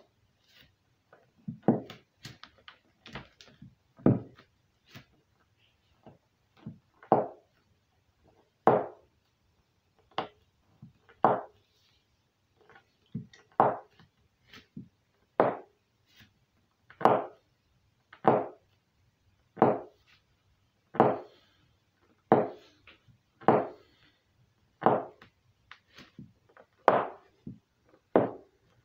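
Toe joints cracking as bare toes are curled under and pressed against a carpeted floor: a sharp pop about every second and a half, some louder than others.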